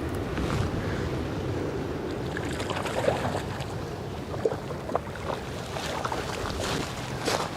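Wind buffeting the microphone over lapping water, with a few short splashy knocks from about three seconds in.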